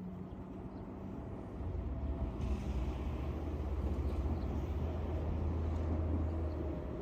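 An engine running with a low, steady hum that grows louder from about two seconds in.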